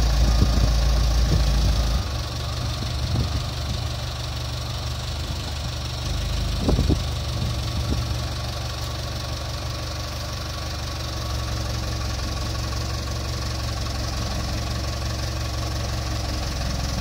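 A telehandler's diesel engine running steadily at low revs, louder for about the first two seconds, with a short clunk about seven seconds in.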